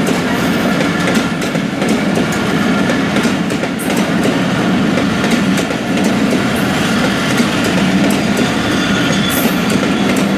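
Intercity passenger coaches rolling past close by: a steady, loud rumble of steel wheels on the rails, with the clickety-clack of the rail joints and a few sharp clicks.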